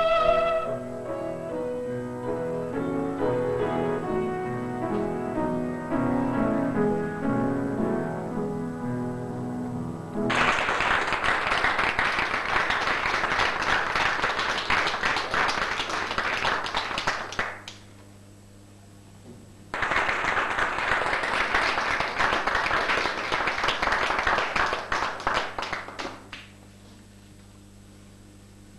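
A singer's held note ends and a piano plays the closing bars of the song. About ten seconds in, an audience bursts into applause, which breaks off, starts again about two seconds later and stops a few seconds before the end.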